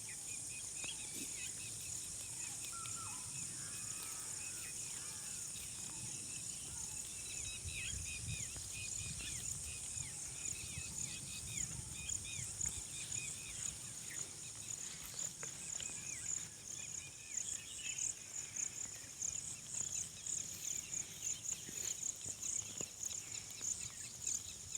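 Outdoor rural ambience: insects trilling in a steady high-pitched drone that turns into quick pulses over the second half, with many short bird chirps throughout and a low rumble underneath.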